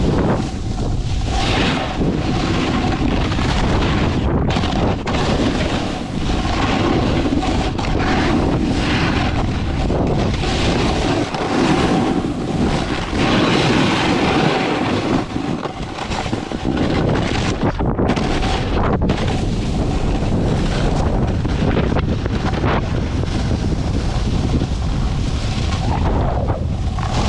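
Wind buffeting the camera microphone with a continuous low rumble, over the hiss and scrape of a snowboard's edges carving through snow, swelling and easing with the turns.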